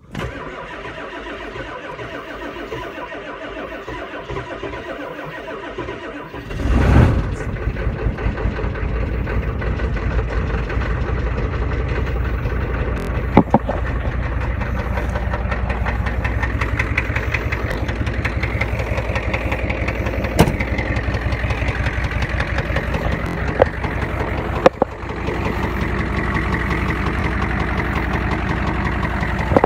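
Diesel truck engine cold-started after sitting for days in the cold with its block heater plugged in. The starter cranks for about six seconds, the engine catches with a loud surge, then settles into an idle with a rapid, even pulse. A few sharp clicks and one brief dip in the running come later.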